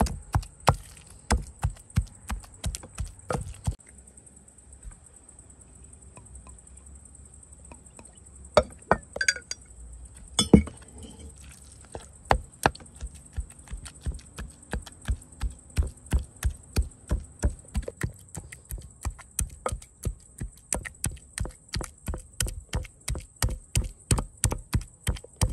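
Rhythmic knocking of a kitchen utensil striking a hard surface, about three strikes a second. The strikes stop for several seconds in the middle, where a few clinks fall, one of them a sharp clink. A faint steady high hiss runs underneath.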